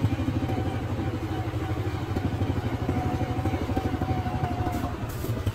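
Motorcycle engine running steadily, with a low hum and rapid, even firing pulses.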